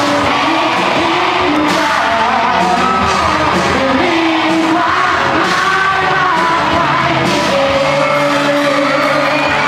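Live rock band performing: a young male lead singer with electric guitar, bass guitar and drum kit, amplified through stage amps.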